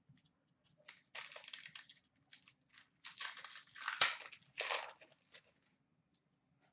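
A hockey card pack's wrapper crinkling as it is torn open and handled, in several short bursts over a few seconds, with one sharp click near the middle.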